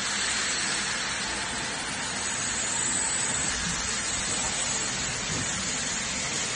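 Steady, even rushing hiss with no clear tones or knocks, like background fan or air noise in a workshop.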